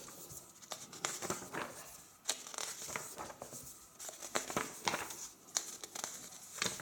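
Thick glossy pages of a large hardcover book being turned by hand: paper rustling and crinkling, with several sharp flicks as pages turn over.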